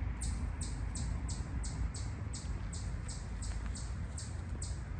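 An insect chirping in a steady rhythm, about three short high-pitched pulses a second, over a low rumble of wind on the microphone.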